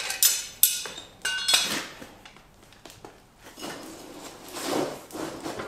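Steel tongs and metal clinking and clanking against the forge, with several sharp ringing clinks in the first two seconds, then softer scraping as the steel piece is set into the coal fire.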